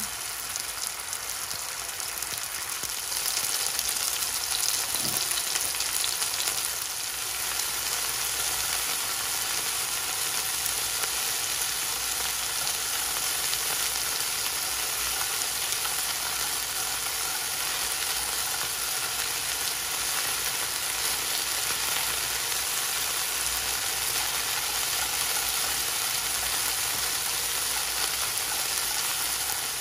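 Chicken breast pieces frying in hot oil in a non-stick pan on high heat: a steady sizzle that gets louder about three seconds in.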